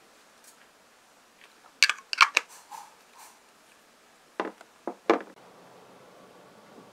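Several quick spritzes from a perfume spray bottle in two short groups. Near the end a steady low hum of a car cabin takes over.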